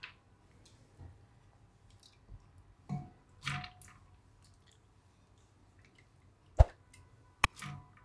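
Soaked chana dal (split chickpeas) squishing and shifting as a hand pushes it around in a pressure cooker pot, in a few soft wet rustles. A sharp knock comes about six and a half seconds in, followed by two short clicks near the end.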